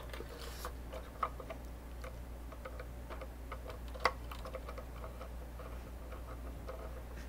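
Faint, scattered clicks of a small Phillips screwdriver and fingers working the screw that holds the coupler armature on the plastic truck of an O gauge model freight car, with a sharper click about four seconds in. A steady low hum runs underneath.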